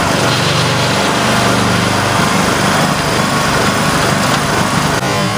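Riding lawn mower's small engine running steadily while the mower is driven, loud and close.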